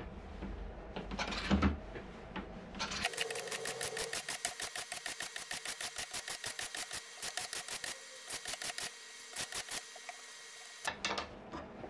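Hand plane taking quick, even strokes along a thin wooden inlay strip, about four strokes a second, starting about three seconds in and stopping near the end. A few knocks from handling the work come before it.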